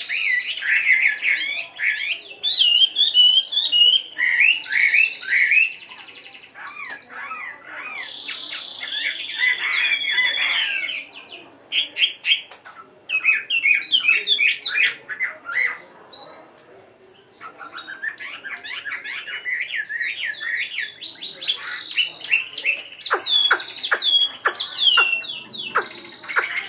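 Chinese hwamei singing: a long, rapid run of varied whistles, slurred notes and trills, with a short lull a little past the middle.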